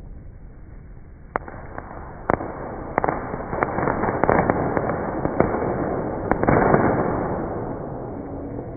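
Fireworks going off: a few separate sharp bangs in the first three seconds, then a dense spell of crackling pops and bursts that peaks around the two-thirds mark and fades away.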